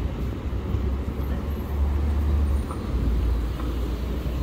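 City street traffic noise: a steady low rumble of road vehicles.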